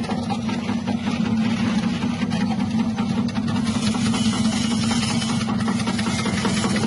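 Electric chip-slicing machine, driven by a 180-watt motor, running steadily. It gives a steady hum with a dense, fast rattle over it.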